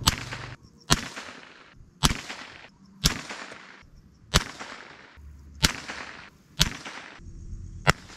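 Big-bore rifle firing: a string of about eight sharp, loud cracks roughly a second apart, each trailing off in a short echo.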